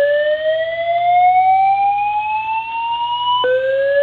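SpectrAlert Advance SPW fire alarm wall speaker sounding the slow-whoop evacuation tone: a loud tone rising steadily in pitch for about four seconds, then dropping back and starting a new rising sweep near the end. It is the building's fire alarm evacuation signal.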